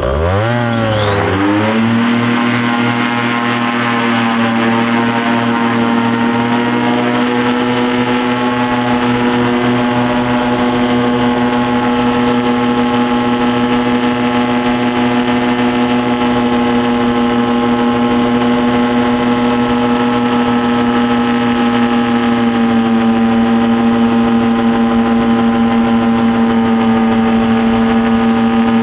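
A small engine is throttled up over about two seconds, its pitch rising quickly. It then runs at a steady high speed, dipping slightly near the end.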